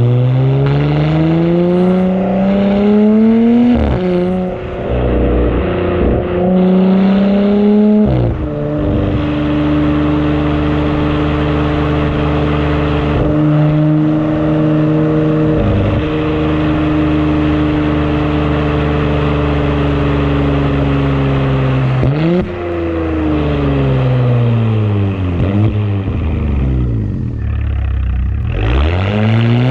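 Audi S5 B9's turbocharged V6, fitted with an AWE Track Edition exhaust and a Luft-Technik intake, accelerating hard with rising pitch through two quick upshifts in the first eight seconds. It then holds a steady drone at cruise, falls in pitch as the car slows near the end, and rises briefly again.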